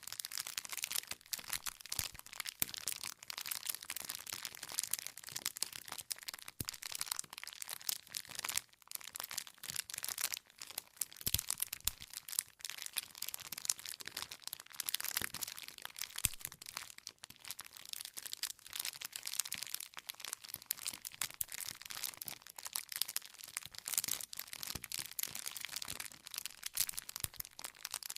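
Campfire crackling: burning firewood giving off a dense, irregular run of small snaps and pops.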